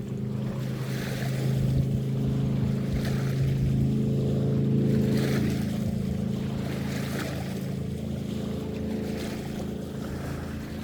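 Motorboat engine droning steadily as the boat passes, growing louder toward the middle and then slowly fading away.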